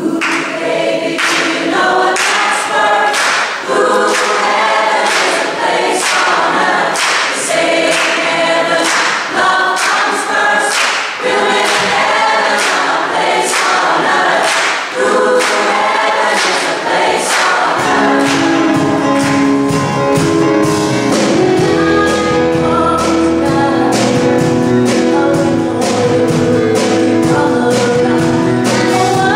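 Large mixed choir singing a pop song, with a sharp beat about twice a second. About two-thirds of the way through, a deep bass comes in and the accompaniment fills out.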